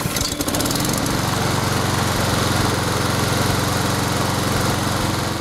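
Honda HRX476C2 lawnmower's single-cylinder four-stroke engine catching right after a brisk pull on the recoil starter, starting abruptly and then running steadily.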